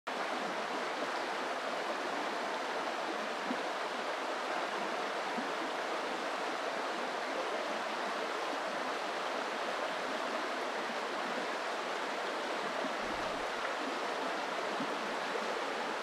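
River rapids rushing steadily, a continuous even roar of white water.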